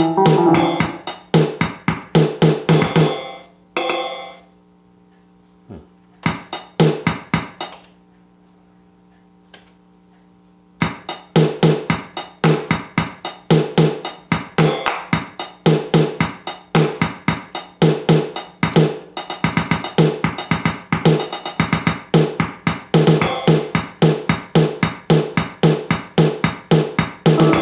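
Casio Casiotone CT-360 electronic keyboard playing a preset drum-machine rhythm with accompaniment. The rhythm stops about four seconds in, leaving faint steady tones and a couple of clicks, then starts again around eleven seconds.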